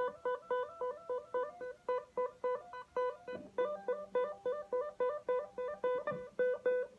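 Music: a plucked string instrument picking a quick repeating melody of short, staccato notes, about four a second, each note dying away fast.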